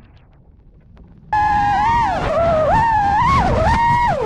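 FPV quadcopter's brushless motors whining, the pitch stepping up and down with the throttle; the whine starts abruptly about a second in after a quiet moment and begins to drop in pitch at the very end.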